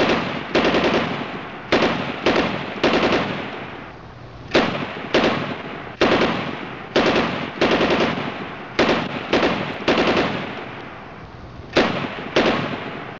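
Bursts of automatic gunfire: about fifteen short rattling bursts in loose groups of two or three, each dying away with an echo. It cuts off suddenly at the end.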